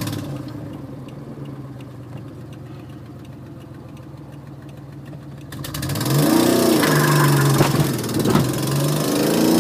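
Nissan Maxima's VG V6 engine idling, heard from inside the cabin. About six seconds in it revs up hard, its pitch climbing; it eases briefly, then rises again near the end.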